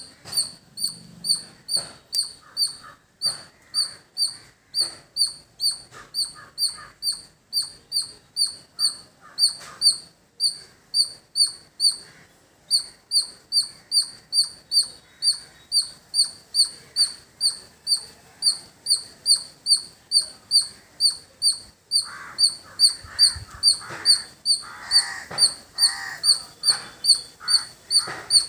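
Squirrel calling a long run of short, sharp high chirps, about two or three a second, evenly repeated with one brief break partway through.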